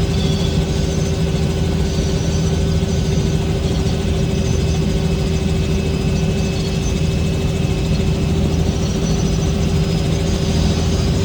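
Helicopter in flight: a steady engine and rotor drone with a constant low hum and a steady whine, unchanging throughout.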